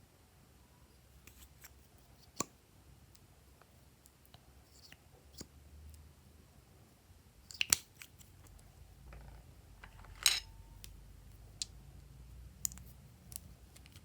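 Slime being mixed by hand: scattered sticky clicks and snaps, the loudest about eight and ten seconds in.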